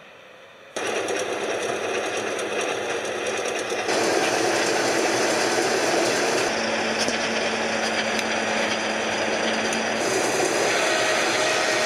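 Steady mechanical running noise of military rocket-launcher vehicles and their rocket-reloading gear. It cuts in abruptly about a second in and gets louder at about four seconds, with a low steady hum through the middle.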